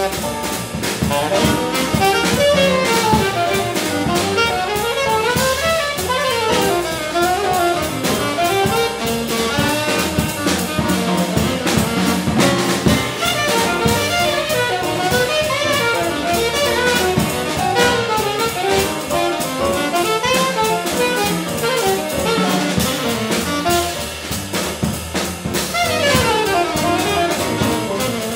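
Jazz quartet playing: a saxophone carries the melody over a Roland stage piano, an upright double bass and a drum kit with steady cymbal time.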